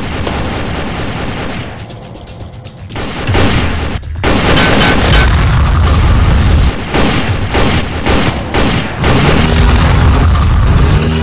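Action-film gunfire and explosion sound effects: rapid shots and booms laid over background music, with a brief lull about two seconds in.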